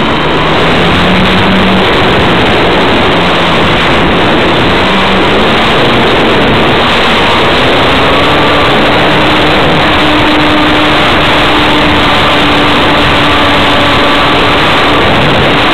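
Loud wind noise over the onboard camera's microphone on a Multiplex Gemini foam RC biplane in flight, with the electric motor and propeller whine underneath. The whine rises in pitch a little under halfway through and then holds steady.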